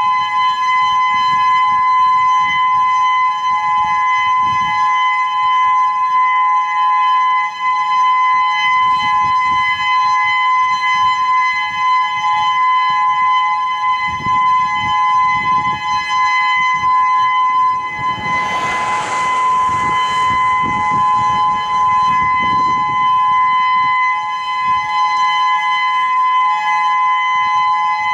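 Whelen 2016 electronic outdoor warning siren sounding its steady alert signal: two steady pitches held together with their overtones, without rising or falling. A brief rush of noise passes about two-thirds of the way through.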